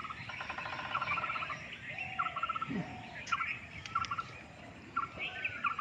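Birds and frogs calling: a short, rapidly pulsing call repeats about once a second, with scattered high chirps and a few lower rising-and-falling calls, all over a steady high background chorus.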